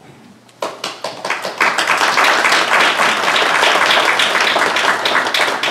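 Audience applauding. The clapping starts about half a second in and quickly builds to a loud, steady mass of hand claps.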